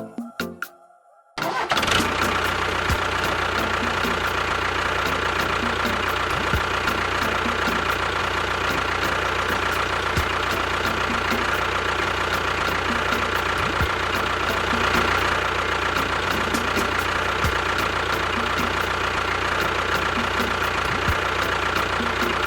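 A steady engine running sound that cuts in suddenly about a second and a half in, with a faint low knock repeating about every three and a half seconds.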